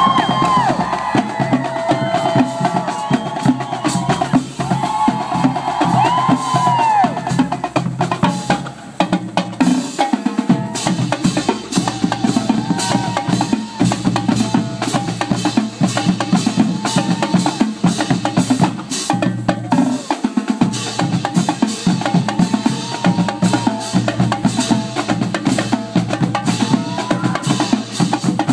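Marching drumline of snare and bass drums playing a fast, steady cadence.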